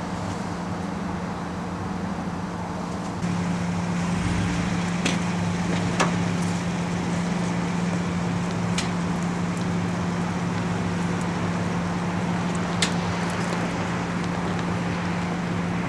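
An engine running steadily with a low hum, stepping up louder about three seconds in, with a few sharp clicks or knocks on top.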